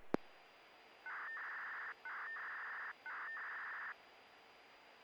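Analog municipal disaster-prevention radio broadcast coming in on a receiver: a click as the signal opens, then three tone bursts, each just under a second long with a short gap between them, the start-up signals sent before the chime, over faint radio hiss.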